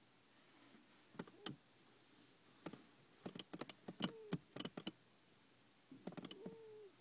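A cat snoring in its sleep, faint: clusters of crackly clicks, several ending in a short whistling tone that dips in pitch, coming every couple of seconds with the breaths.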